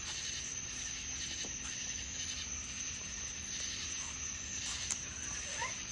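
Crickets trilling steadily, a continuous high-pitched sound.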